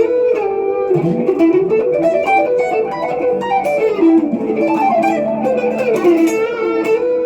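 Electric guitar, a Squier Classic Vibe Stratocaster run through a Zoom G2X Four multi-effects pedal and a Laney mini amp, playing a lead line of quick single-note runs that climb and fall, with a few held notes.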